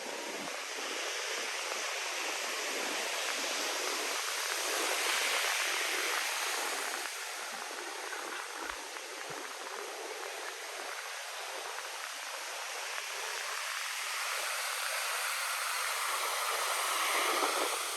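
Ocean surf breaking and washing up on a sandy beach: a steady rush of waves that swells louder about five seconds in and again near the end.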